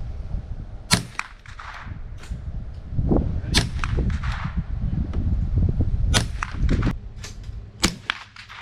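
Remington 597 .22 LR semi-automatic rifle firing: about four sharp cracks a second or more apart, with fainter reports between them, over a low rumble.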